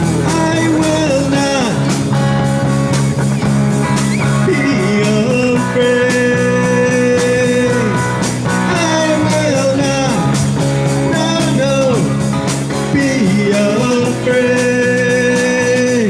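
Live rock band playing: drum kit, electric guitars and keyboard in an instrumental stretch between choruses, with a lead line that holds and bends its notes.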